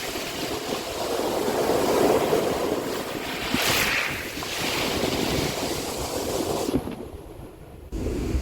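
Sea waves washing onto the shore, swelling about two seconds in, with a hissing rush of surf around three and a half seconds. Near the end the sound dips, then cuts back in louder with wind rumbling on the microphone.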